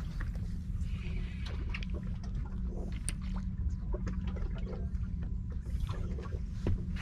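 A fishing boat at sea: a steady low rumble with water lapping at the hull and scattered light clicks and knocks.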